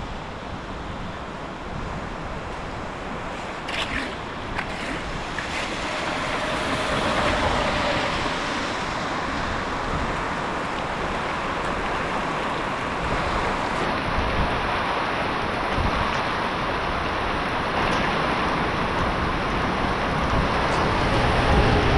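Rushing water running steadily and slowly growing louder, with a few short knocks about four seconds in.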